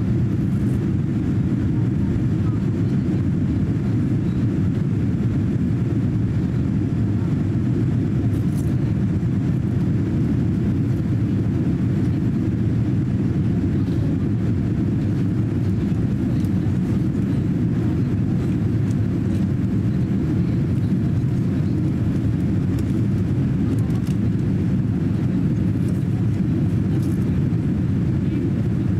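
Cabin noise inside a Boeing 787-9 airliner climbing out after takeoff: a steady, even low rush of its GEnx engines and the airflow over the fuselage, with no change in pitch or level.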